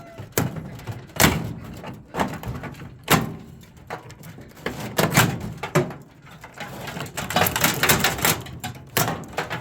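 Irregular metallic clanks, clicks and rattles of hand tools working on the metal parts of a microwave as it is taken apart, with a busier stretch of rattling late on.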